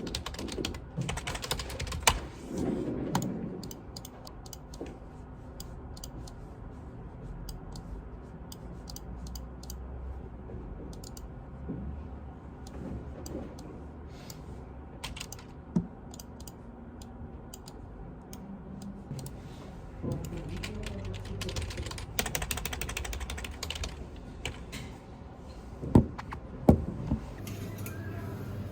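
Typing on a computer keyboard, irregular runs of key clicks over a low steady room hum, with a few louder single knocks about two seconds in, in the middle and near the end.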